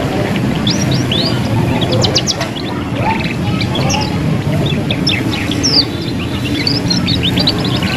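Young canary twittering: quick runs of short high chirps and trills, the unformed practice song of a juvenile bird learning to sing. A steady low rumble of background noise lies underneath.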